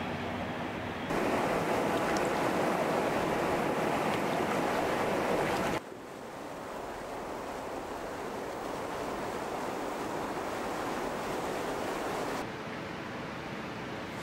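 Steady rushing of a fast mountain river, an even hiss with no distinct events. It gets louder about a second in, drops suddenly near the middle, then eases down again near the end.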